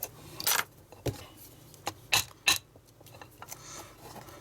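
A metal tool clicking and scraping against the metal chassis and spindle-motor housing of a dismantled hard drive, in about five short, sharp knocks, the loudest near the middle.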